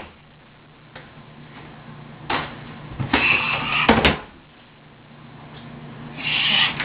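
Blows against a bathroom wall as it is broken apart. There is a short knock about two seconds in. A longer break follows about a second later and ends in a sharp crack. Another comes near the end.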